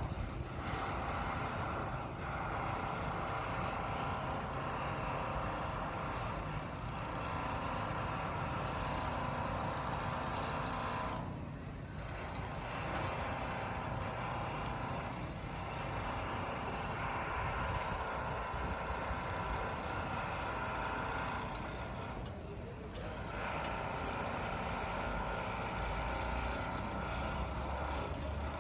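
Steady road traffic and site machinery noise, with no clear single event; it drops out briefly twice.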